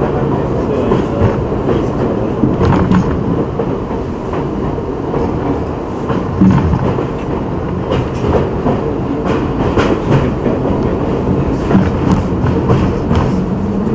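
Subway train running on the rails: a continuous loud rumble with scattered sharp clicks and knocks of wheels over rail joints.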